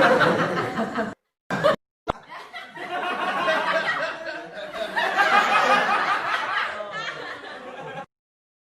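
Hysterical laughter sound effects, hard-cut one after another: a burst of loud laughter stops abruptly about a second in, a brief snippet follows, then a longer stretch of laughter runs about six seconds and cuts off near the end.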